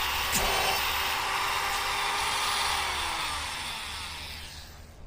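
Dremel rotary tool with a thin abrasive cutoff wheel cutting into rusted steel screw heads: a steady high whine with grinding hiss. In the last two seconds the motor winds down, its pitch falling as the sound fades.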